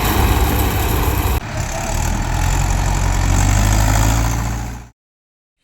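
Heavy diesel farm-machine engine running loud and steady, with an abrupt jump in the sound about a second and a half in, then cutting off suddenly to silence near the end.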